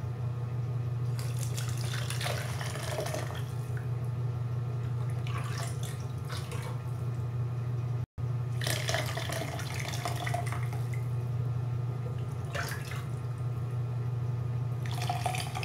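Ladlefuls of vegetable broth poured through a plastic strainer into a plastic pitcher: liquid splashing and trickling in several separate pours, over a steady low hum. The sound drops out for an instant about eight seconds in.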